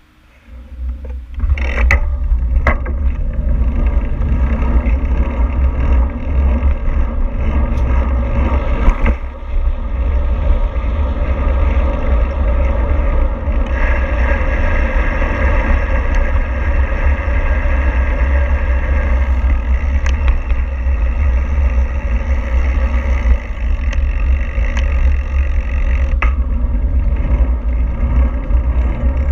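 Vehicle travelling, with road and wind noise. A loud, steady low rumble starts suddenly about a second and a half in and runs on with little change.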